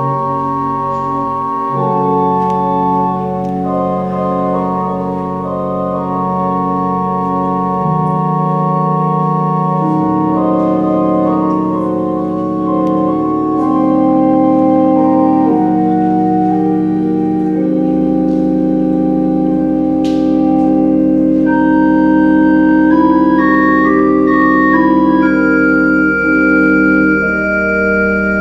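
Two-manual electronic church organ playing slow, held chords over a low bass line, the chords changing every second or two.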